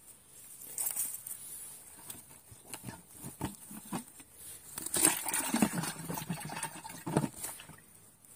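Close rustling with irregular clicks and knocks from handling right by the microphone, with cloth brushing over it; busiest and loudest a little past the middle, then settling just before the end.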